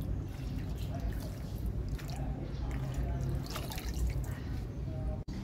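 Water dripping and splashing in small irregular drops over a low rumble, cut off for an instant near the end.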